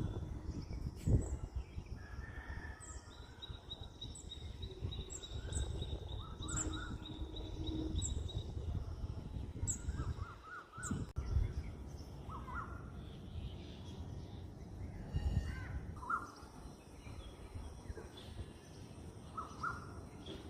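Several birds calling and chirping in short scattered phrases over a steady low background rumble, with a thin high steady tone for a few seconds about three seconds in.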